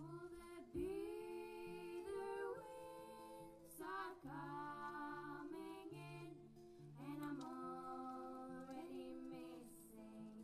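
Singing with acoustic guitar accompaniment: sung phrases with long held notes over steady, repeating low plucked guitar notes.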